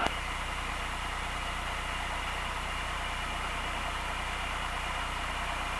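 Cessna 172's four-cylinder piston engine running steadily at low taxi power, a constant low engine hum heard from inside the cabin.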